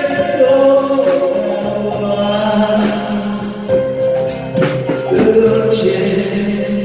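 Live band music: a singer holds out a sung line over keyboard and drum accompaniment, with a few drum and cymbal strikes near the middle.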